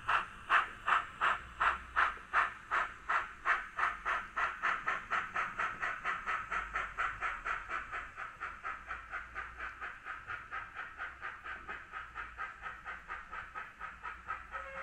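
Sound decoder in an H0e model of the ÖBB 399 narrow-gauge steam locomotive, giving a steady hissing steam chuff of about three to four beats a second as the loco runs. The beats get slightly quicker and fainter as the train pulls away.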